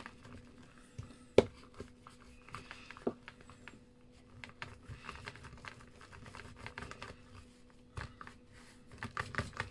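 Metal rolling pin rolled back and forth by hand over air-dry modelling paste in a mould, flattening it: soft rubbing with scattered small clicks and taps, a sharper click about a second and a half in, and a denser run of taps near the end, over a faint steady hum.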